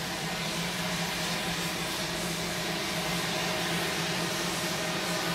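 Pratt & Whitney Canada PT6A-66B turboprop of a Piaggio P180 Avanti II running steadily with its pusher propeller turning, a steady hiss over a low hum.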